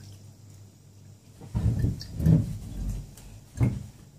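Dull knocks and bumps of a glass cup being handled and moved about on a cloth-covered table, a cluster of them from about a second and a half in and one sharper knock near the end. A faint steady low hum underlies the start.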